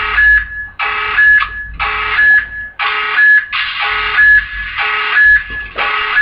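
'Tactical nuke incoming' alarm sound effect: a loud electronic alarm pulsing about once a second, each pulse a steady high tone over a lower one.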